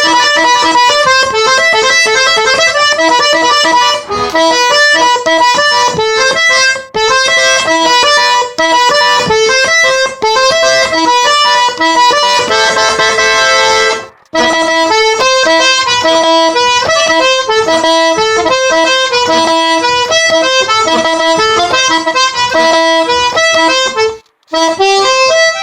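G–C button accordion playing a fast instrumental passage between sung verses, quick melody notes over chords. It breaks off for a moment about fourteen seconds in and again near the end.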